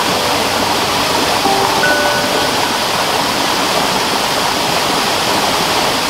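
Waterfall water rushing steadily over rocks into a stream.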